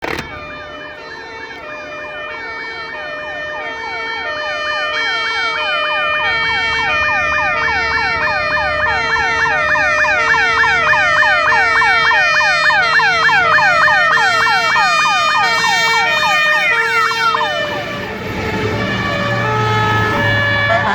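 Fire truck siren answering an alarm, yelping in fast falling sweeps about twice a second over a pulsing lower tone, growing louder as the truck approaches. The sweeps stop shortly before the end and a low rumble rises.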